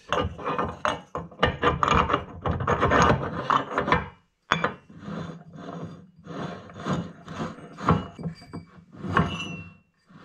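Metal lathe parts, a pulley and a faceplate, scraping and rubbing as they are handled and slid on and off the headstock spindle, in irregular bursts with a short pause about four seconds in.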